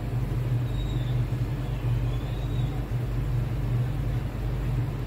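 Aquarium air pump running, a steady low electric hum with a faint rumble.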